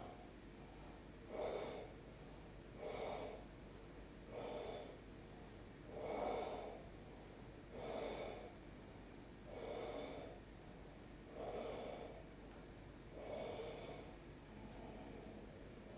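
A person's slow, audible yoga breathing, each breath a throaty hiss typical of the ujjayi breath used in Ashtanga practice. There are about nine breath sounds in an even rhythm, one every one and a half to two seconds.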